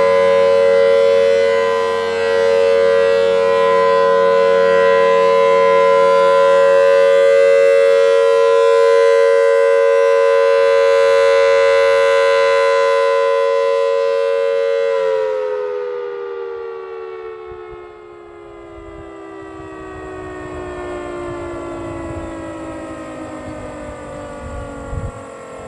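Federal Signal Thunderbolt 1000T outdoor warning siren sounding its steady alert tone. About fifteen seconds in it shuts off and winds down, the pitch gliding slowly lower and the sound fading.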